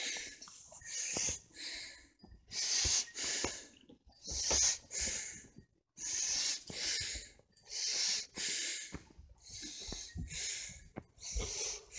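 Loud, hissy breathing right at the microphone, in-and-out breaths repeating about every second and a half.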